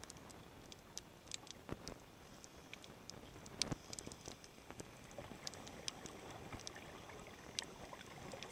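Underwater ambient noise: a faint steady hiss with many scattered, irregular sharp clicks and crackles.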